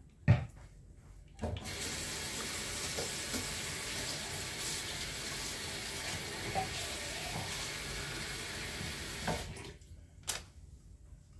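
A sharp knock, then a kitchen tap runs steadily into the sink for about eight seconds and is shut off; another knock follows near the end.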